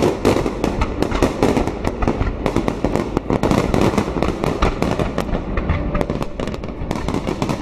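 Fireworks display: a dense, continuous barrage of sharp bangs from many shells bursting at once, several a second with no pause.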